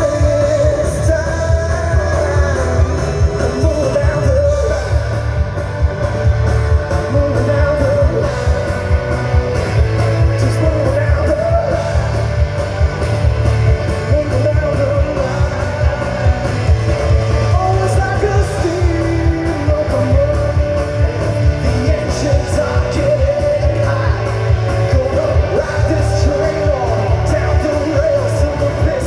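Live rock band playing a song: sung lead vocals over electric guitars, bass guitar and drums, heard from the audience.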